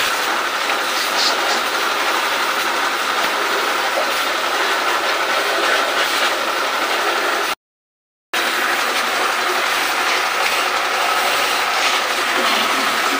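Pressure washer running steadily while its jet sprays a window-type air conditioner's coils during cleaning: an even hiss with a constant high tone, cut off for under a second just past the middle.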